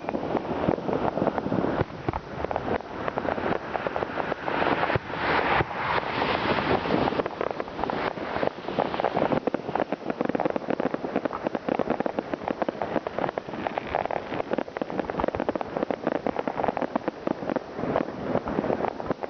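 New Year's Eve fireworks and firecrackers going off all around: a dense, unbroken crackle of many bangs and pops.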